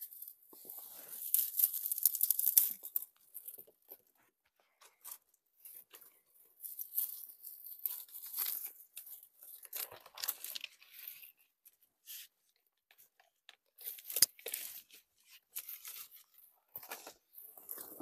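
Dry grass and brushwood rustling as they are handled and pushed into place against a rock, in irregular bursts that are loudest in the first few seconds, with a single sharp click about fourteen seconds in.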